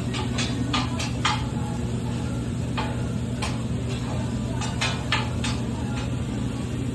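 Metal serving utensils clinking against food containers as a wrap is made to order: a dozen or so scattered sharp clinks over a steady low hum.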